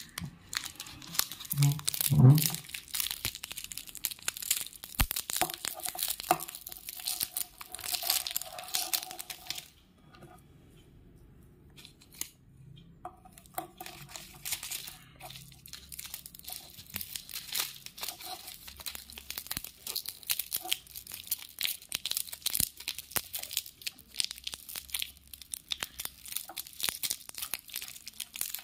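Foil-lined plastic wrapper of a Candyman chocolate stick being torn open and crinkled by hand, with dense crackling that stops for a few seconds about ten seconds in, then starts again.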